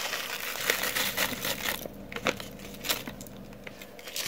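Dry onion soup mix being shaken out of its crinkly packet onto a bowl of cream cheese: a steady crinkling, rustling pour for about two seconds, then scattered rustles and small clicks as the packet is handled.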